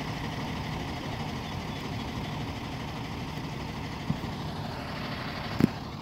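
Flatbed tow truck's engine idling steadily close by, with two short knocks near the end.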